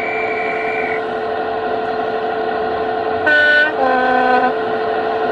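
Model diesel locomotive's DCC sound decoder playing an idling diesel engine through its small speaker, with a thin high tone in the first second. A little over three seconds in it sounds a two-tone horn, a short high note followed at once by a longer low note.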